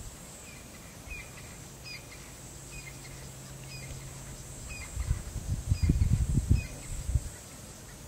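A bird gives a short chirp over and over, about once a second, over a steady low hum and a faint steady high tone. In the second half a burst of low rumbling comes in and is the loudest sound.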